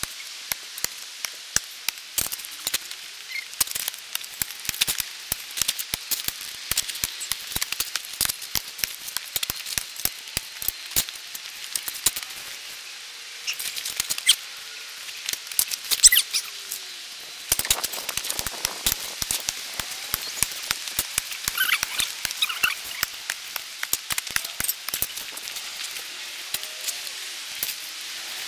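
Hand tools digging dry dirt: shovels, a rake and a pick scraping and striking soil and stones, heard as a dense, uneven run of sharp clicks and scrapes.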